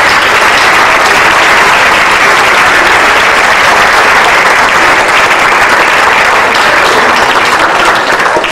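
Audience applauding, a steady, loud clapping that starts to fade near the end.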